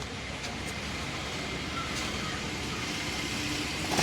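A boat engine running steadily, a low hum under an even wash of noise that slowly grows a little louder.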